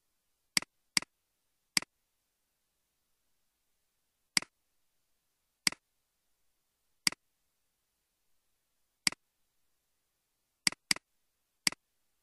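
Computer mouse clicking: about ten sharp single clicks at irregular intervals, two of them in quick pairs.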